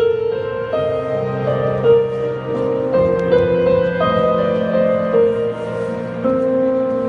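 Slow, sad instrumental music: a melody of long held notes, each lasting about half a second to a second, over lower sustained accompaniment.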